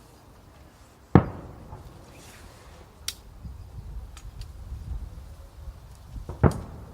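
Aerial firework shells bursting: two loud booms about five seconds apart, each followed by a rumble that dies away, with a few faint sharp cracks in between.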